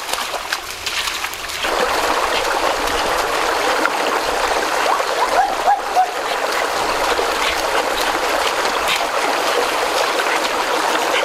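Shallow stream water rushing steadily over rocks, with splashing from feet wading through the water in the first second or two. A few short high chirps come a little past halfway.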